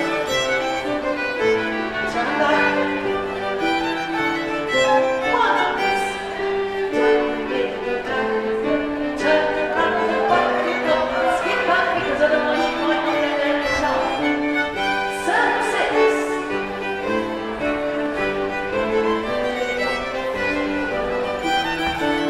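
Fiddle-led country dance tune played by a small band, a quick melody of short notes.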